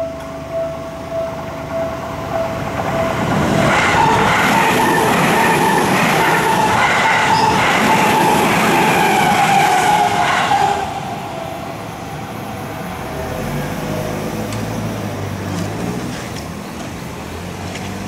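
Level-crossing warning bell ringing in a steady repeating pattern. About three seconds in, a commuter electric train runs through the crossing close by for about seven seconds: loud wheel-on-rail noise with a whine that drops slightly in pitch, cutting off sharply as it passes. A quieter low rumble follows.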